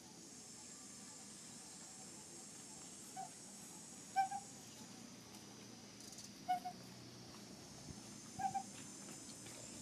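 A bird gives short hooting calls, mostly pairs of quick notes, four times about two seconds apart. The loudest comes about four seconds in, over a steady high-pitched background hiss.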